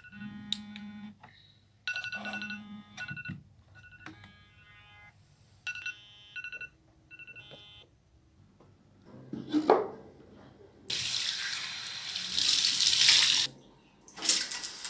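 Smartphone alarm ringtone: short bursts of chimes about every two seconds, stopping about halfway through. After a brief swish, water gushes from a shower mixer for a couple of seconds, breaks off, and comes on again near the end.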